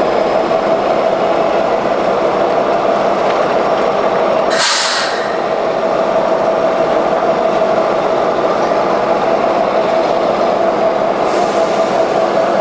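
A train passing close by: a loud steady rumble and rush with a steady squealing tone running through it, and a short burst of hiss about five seconds in.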